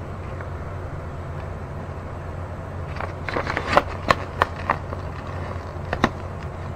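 A paper instruction sheet rustling and crackling as it is handled and turned over, with a cluster of sharp crinkles about three to six seconds in, over a steady low hum.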